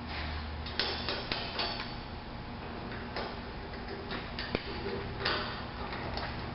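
Scattered sharp metal clicks and knocks, about ten over several seconds, as the fittings of a hitch-mounted tailgate lift are handled at the truck's receiver.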